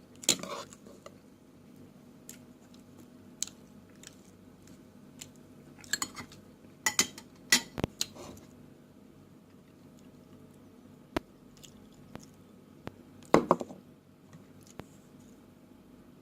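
Close-miked eating sounds: utensils clicking and clattering against dishes in short scattered clusters, with some chewing, over a faint steady hum.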